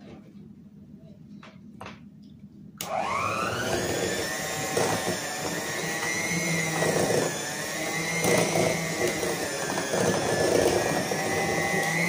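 Electric hand mixer switched on about three seconds in. Its motor whine rises quickly, then runs steadily with a slight wavering as the beaters work thick mascarpone cheese into an egg and sugar mixture. A few faint knocks come before it starts.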